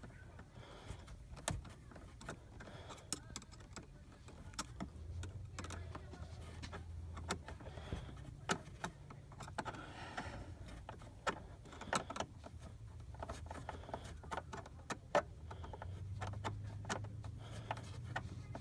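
Irregular small metallic clicks and ticks of a flathead screwdriver working a worm-gear hose clamp, tightening a new dry air filter onto a truck's air intake, over a faint low hum.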